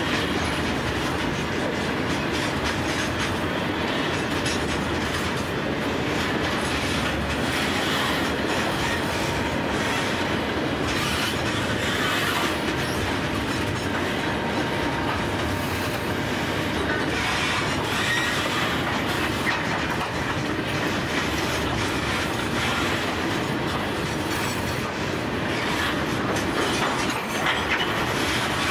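Steel wheels of a long rake of grain hopper wagons rolling past on the rails: a steady rumble and clatter, with a faint wheel squeal at times.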